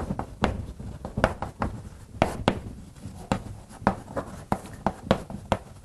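Chalk writing on a blackboard: an irregular run of sharp taps and short scratchy strokes, a few each second.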